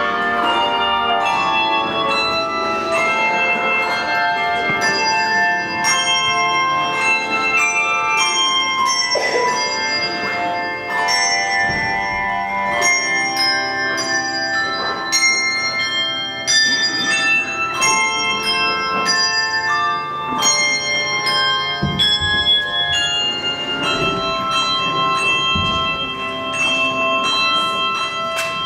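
A handbell choir playing a piece, with many tuned handbells rung one after another so their clear notes ring on and overlap.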